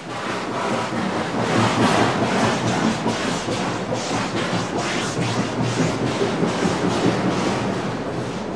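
Steam locomotive letting off steam: a loud, dense hissing rush with repeated pulses.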